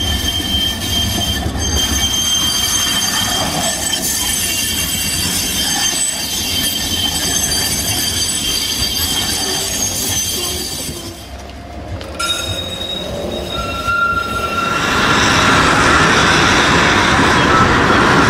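Modern street trams running on rails, with high, steady squealing tones from the wheels over a low rumble. About twelve seconds in the sound changes to an open street, where the noise grows louder near the end.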